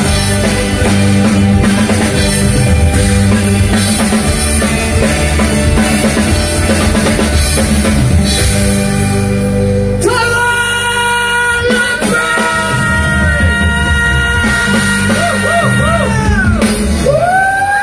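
Live rock band playing: drum kit with electric and acoustic guitars. About ten seconds in, the dense strumming gives way to long held notes that bend up and down in pitch over the drums.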